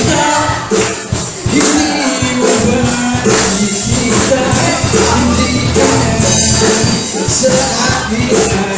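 Live rock band playing loud: electric guitars, bass guitar and drum kit with steady cymbals, and a male singer on a microphone.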